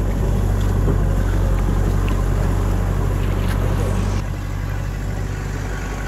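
Farm tractor engine running steadily as it pulls a loaded trailer, a continuous low drone. It drops a little in level about four seconds in.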